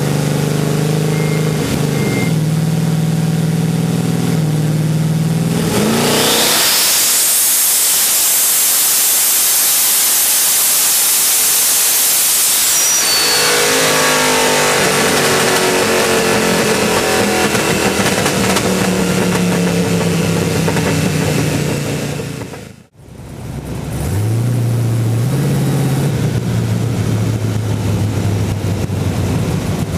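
Twin-turbocharged 427 cubic-inch LSX V8 on a chassis dyno, picked up by a microphone just above the pair of 78 mm turbos. It runs at low speed, then about six seconds in winds up sharply into a hard pull with loud turbo rush and hiss, and drops back about seven seconds later. After a brief dropout near the end, it settles to a steady idle.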